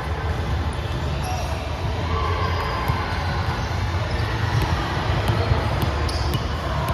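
A ball bouncing a few times on a gym floor, with voices echoing in a large hall and a steady low rumble underneath.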